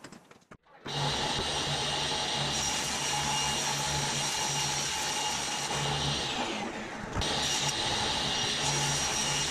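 Table saw running and ripping a sheet of OSB: a loud, steady machine noise with a high whine. It comes in suddenly about a second in and dips briefly near seven seconds before carrying on.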